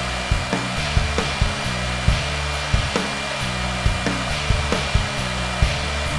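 High-speed engraving spindle on a 3-axis CNC lathe running steadily, a hiss with a thin high whine, as its pointed bit cuts lettering into a wooden baseball bat. Background music with a steady drum beat plays along.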